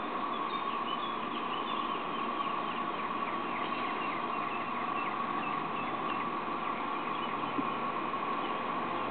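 Steady, even whine of a small radio-controlled toy jet ski's motor as it tows a load through water, over a hiss, with birds chirping in the background.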